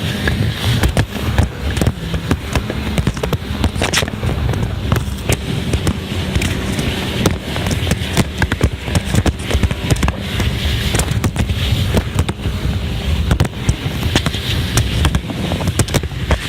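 Jet ski running on open water, its engine a low rumble under many sharp crackling knocks from water spray, the hull slapping over waves and wind buffeting the microphone.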